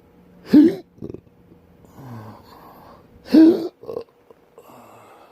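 Two loud hiccups about three seconds apart, each a short, sharp voiced 'hic' that rises and falls in pitch: a bout of intractable, persistent hiccups.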